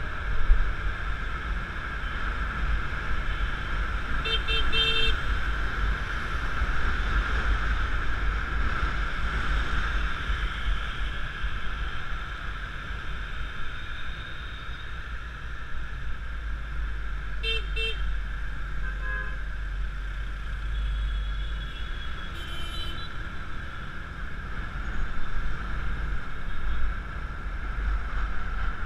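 Riding a Yamaha Mio Classico scooter through city traffic: steady low wind and road rumble with the scooter running underneath. Short vehicle-horn beeps come a few quick times about four seconds in, twice more past the middle, and once again a little later.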